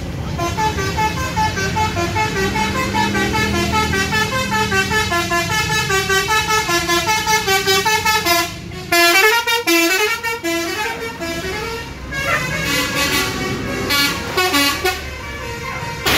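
Bus 'telolet' multi-tone horn playing a fast tune of short notes stepping up and down, over the low running of the bus engine. About halfway through the engine drops away and the horn sequence turns louder and busier.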